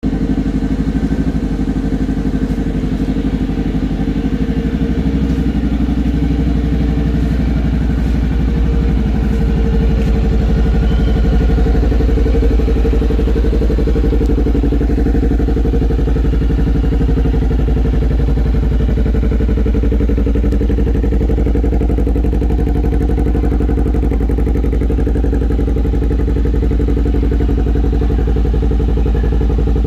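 Honda Rebel 500 motorcycle's parallel-twin engine idling steadily, with an even low exhaust pulse.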